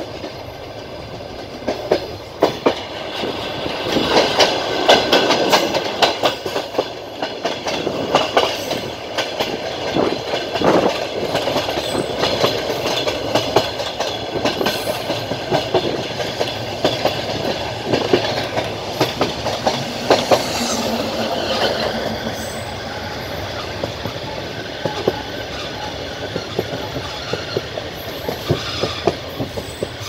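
Passenger train carriage running along the track, its wheels clacking irregularly over rail joints above a steady rolling rumble.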